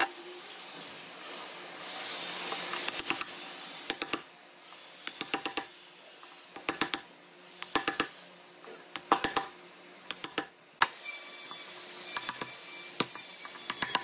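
Steel wood chisel chopping and levering waste out of a mortise in a softwood board. Quick clusters of sharp taps come every second or two.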